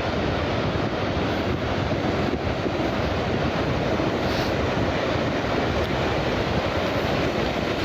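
Steady rush of wind buffeting the microphone, mixed with sea surf breaking on the shore.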